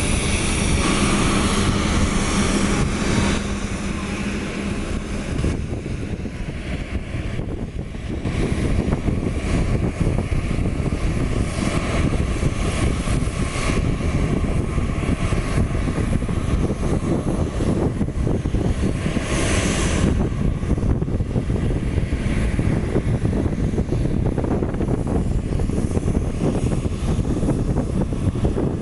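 Jet airliner noise from a Boeing 767-300 freighter at its stand, being started for pushback: a steady rumble and hiss that steps up in level about eight seconds in, with a brief sharper hiss around twenty seconds in.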